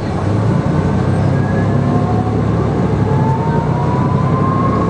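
Den Oudsten Alliance B96 city bus accelerating: steady engine rumble with a whine from its ZF gearbox climbing slowly in pitch.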